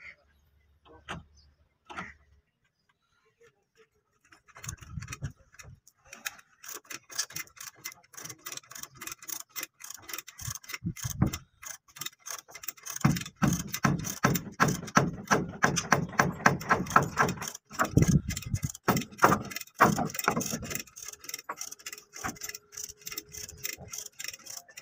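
Rapid, even tapping from hand-tool work on a wooden boat hull, several knocks a second, starting about four seconds in and loudest in the middle.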